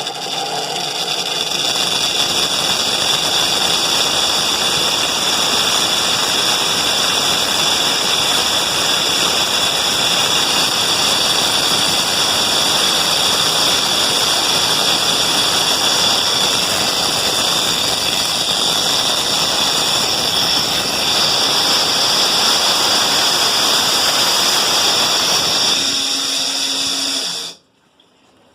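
Colormaq LCA 11 washing machine in its spin cycle, making a loud, steady rushing noise with a high-pitched whine: the abnormal spin noise whose cause the owner is asking about. It cuts off abruptly near the end.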